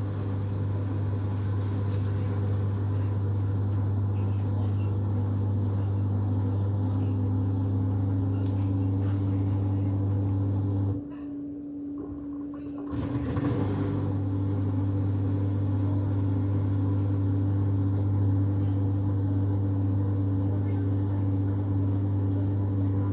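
LG S3457 washing machine running with a loud, steady motor hum and a higher tone that slowly rises in pitch. The hum cuts out about eleven seconds in and starts again about two seconds later.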